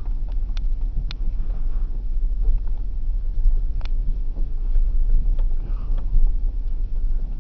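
Steady low rumble of a vehicle driving slowly over a rough dirt road, heard from inside the cabin, with a few sharp clicks and rattles.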